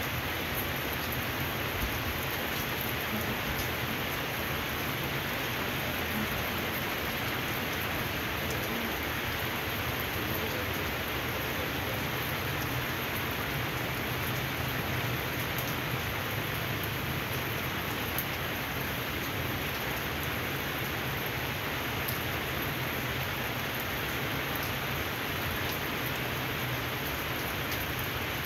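Steady rain falling on wet pavement, an even hiss that holds unchanged, with scattered individual drops striking close by.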